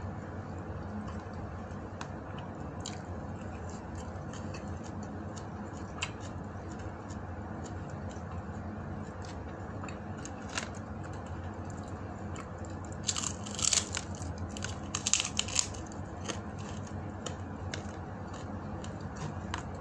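Mukbang eating sounds close to the microphone: fingers picking food off a plate with scattered small clicks, and a burst of crunching about two-thirds of the way through, typical of biting or breaking crisp dried fish (tuyo or danggit). A steady low background noise runs underneath.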